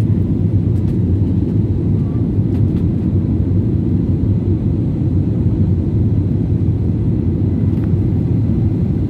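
Steady low rumble inside the cabin of an Airbus A320-family airliner climbing after takeoff: jet engine and airflow noise heard from a window seat.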